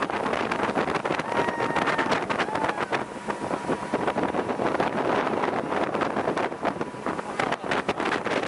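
Motorboat running at speed while towing a waterskier, with wind buffeting the microphone in irregular gusts over the rush of engine and water.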